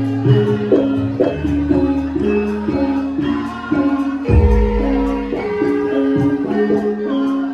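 Javanese gamelan-style music for a lengger dance: a melody of struck, ringing notes stepping between a few pitches over steady percussion, with a deep low stroke about four seconds in that sustains.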